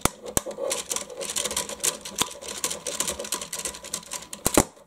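Rapid small clicks and rattles of a plastic RC truck chassis being worked on by hand while a screw in the steering unit is undone, with one sharper click near the end.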